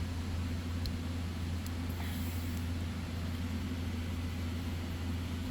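Steady low mechanical hum in the background, with a few faint light clicks from small carburetor parts as the throttle linkage is worked into place.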